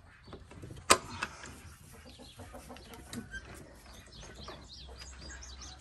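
Chickens clucking and chirping faintly in a farmyard, with a run of short high chirps, about three or four a second, in the second half. A single sharp knock about a second in is the loudest sound.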